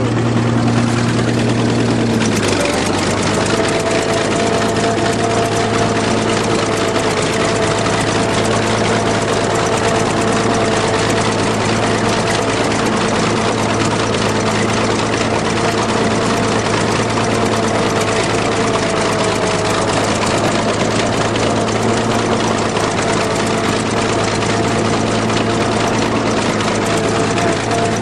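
Bulldozer's diesel engine running steadily, heard from on board the machine. About two seconds in its low note drops slightly and a higher steady whine joins in and holds.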